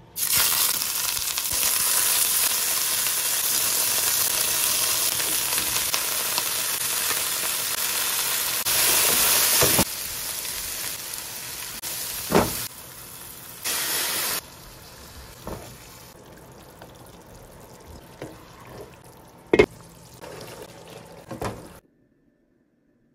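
Food sizzling and frying in hot oil in a pan, loud for about the first ten seconds, then quieter frying with a few sharp knocks of a wooden spatula stirring against the pan. It stops about a second before the end.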